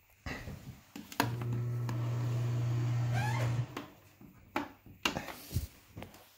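A steady low electric hum that starts with a click about a second in and stops after about two and a half seconds, with a short rising squeak just before it stops. Several separate knocks follow.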